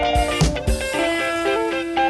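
Background music: guitar over a drum beat, the drum hits stopping about a second in and leaving a held note.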